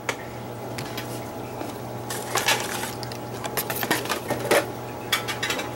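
Handling noises as folded paper pieces are gathered up off a wooden tabletop: scattered light rustles and small knocks, strongest around the middle and near the end, over a steady low hum.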